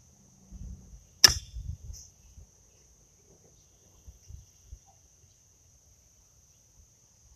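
A pitched horseshoe lands in the near pit about a second in with one sharp impact and a few dull thuds after it. Crickets keep up a steady high trill throughout.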